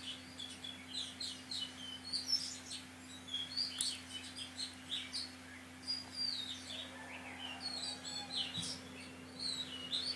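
Small birds chirping and twittering, with many quick high chirps that swoop in pitch, over a faint steady hum.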